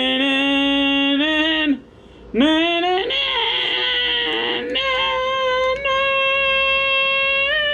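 A man singing a wordless fanfare in long held notes. A short break comes about two seconds in, then he slides up to a higher note and holds it for several seconds.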